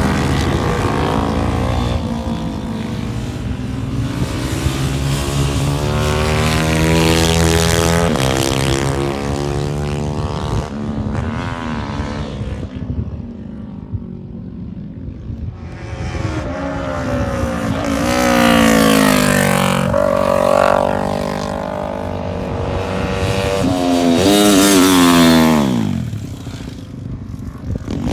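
Sport motorcycles lapping a circuit, their engines revving up and down through the gears as they ride past. The two loudest passes come about two-thirds of the way through and near the end, the engine note falling away as each bike goes by.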